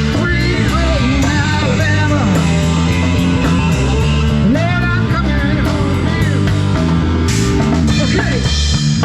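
Rock music with drums and guitar playing at a steady beat.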